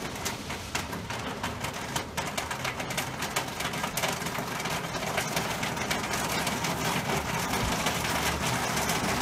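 Storm wind rushing and buffeting over a phone's microphone as a tornado approaches: a dense, steady rushing noise full of crackles that slowly builds.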